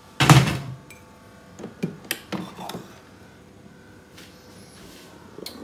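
A ceramic mug set down on an espresso machine's drip tray: one loud knock with a short ring, then a few lighter knocks and clinks as it is shifted into place under the spout.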